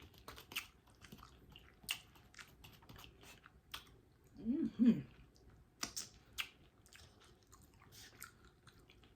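Close-miked chewing, with many small wet mouth clicks. About four and a half seconds in there is a short hummed 'mm' of enjoyment.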